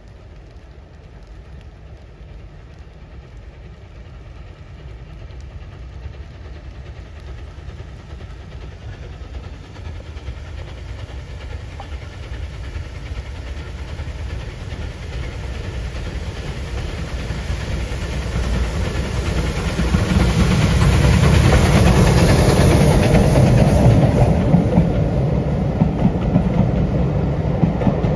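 A steam locomotive and a diesel locomotive hauling passenger coaches approach and pass close by. The noise of the engines and the wheels on the rails builds steadily and is loudest a little past two-thirds of the way through, with a high hiss at its peak.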